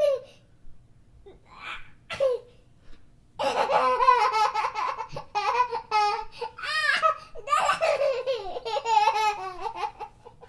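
A young child laughing: a few short giggles, then a long fit of high-pitched laughter from about three seconds in, with a brief catch of breath partway through.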